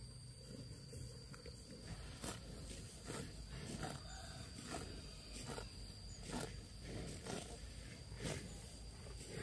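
Water buffalo grazing, tearing up mouthfuls of grass in short irregular pulls, about one every half second to a second.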